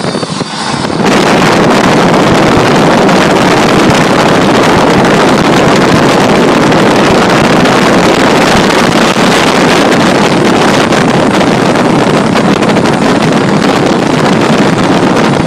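Heavy wind roar buffeting the microphone of a phone held out of an open car window at highway speed, mixed with road noise. It cuts in suddenly about a second in and stays loud and steady.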